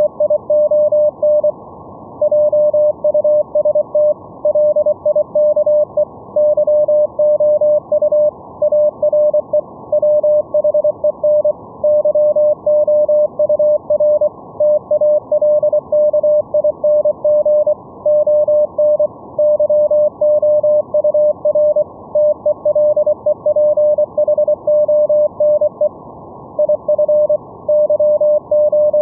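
Morse code (CW) sent as a single steady tone keyed rapidly on and off, with a short pause a little before the end, over a steady hiss cut off above about 1 kHz, as heard through a software-defined radio receiver's audio.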